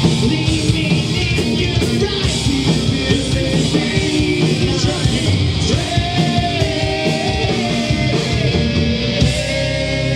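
Live heavy metal band playing: distorted guitars and pounding drums with a singer's voice over them, some notes held long in the second half.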